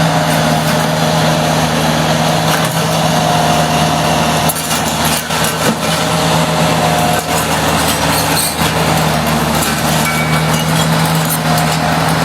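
A bulldozer's diesel engine runs steadily, with scattered knocks and clatter over it.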